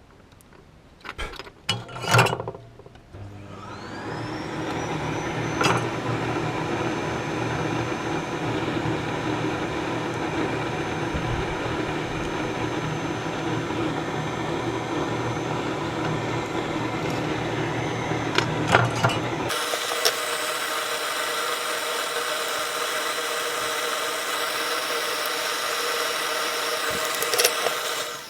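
A few clicks, then a small electric motor whirring up to speed with a rising whine and running steadily. About two-thirds of the way through its tone changes, turning thinner and higher, and it cuts off suddenly near the end.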